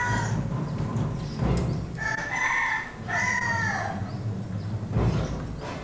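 Rooster crowing: one drawn-out crow about two seconds in, over a low steady rumble.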